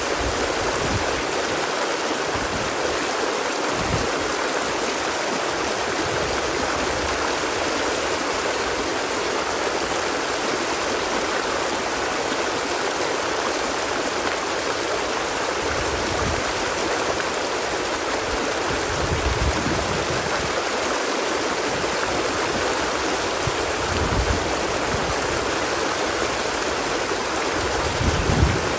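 Flowing water rushing steadily, an even, unbroken noise, with a few brief low rumbles here and there.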